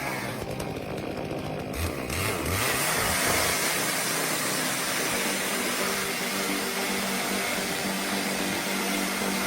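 Stihl MS 661 C two-stroke chainsaw with a 28-inch guide bar cutting through large ash timber; the sound grows louder about two and a half seconds in.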